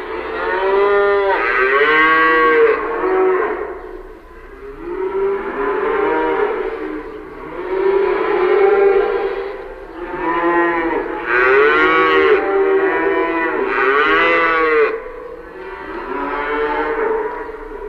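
Cattle mooing: a run of about six long calls, each rising and falling in pitch, following one another with little gap and sometimes overlapping.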